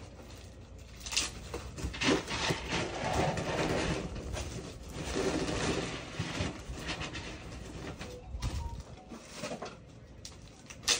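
Containers being filled with cat food: irregular rustling and rattling handling noise with a few sharp knocks, busiest through the middle.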